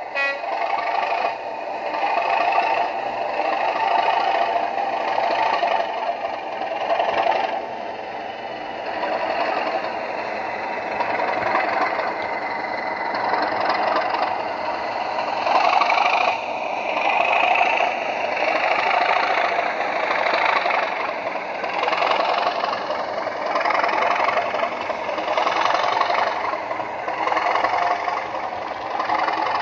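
Model-railway DCC sound decoder playing a Class 37 diesel's English Electric engine under power, the thrash of the engine beat with a turbocharger whine over it. It comes from the small onboard speaker of an OO-gauge Bachmann Class 37 model as it hauls its train past.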